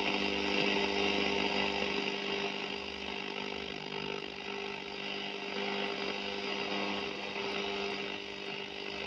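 Shortwave band of a National Panasonic RX-1650T radio cassette player giving static hiss over a steady buzzing hum while it is tuned in search of stations, the signals coming in weak.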